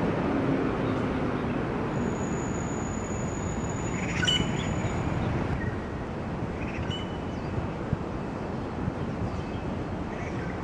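Steady outdoor rumble of city traffic, with a few short high bird chirps about four and seven seconds in.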